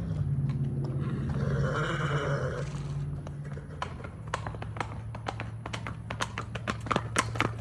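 Hoofbeats of a mare loping on packed dirt, growing louder and sharper as she comes toward the listener, over a steady low hum.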